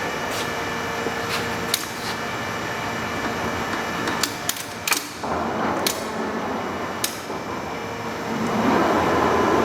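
Lehmann hollow-spindle lathe running with a steady mechanical hum, broken by several sharp clicks and knocks. A louder rushing noise builds in about eight and a half seconds in.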